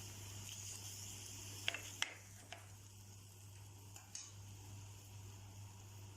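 A few light clicks of a cooking utensil against the pan, over a faint steady hiss of chicken and sauce heating up to a boil and a low hum.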